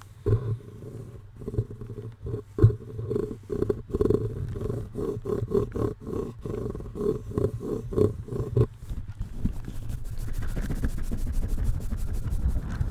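Close-up handling noise of a microphone being rubbed and scrubbed: a dense low rumble with many rapid scratchy crackles, settling into a steadier low rumble about nine seconds in.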